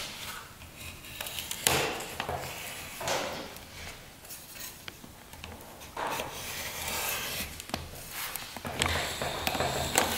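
A flat metal tool scraping and rubbing along lead came, bending the lead flanges back down to hold a newly set pane in a leaded-glass panel. It comes in irregular strokes, with a few light clicks.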